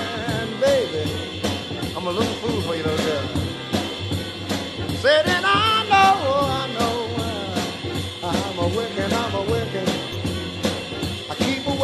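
Background music: a rhythm-and-blues song with a steady drum beat and bending melody lines.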